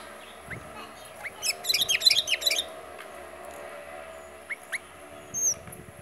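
Sooty-headed bulbul (kutilang) singing: a few single short upslurred notes, then a rapid run of chirps about a second long beginning around a second and a half in, and more single notes near the end.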